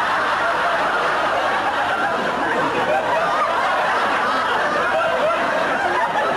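Audience laughter: many people laughing together without a break.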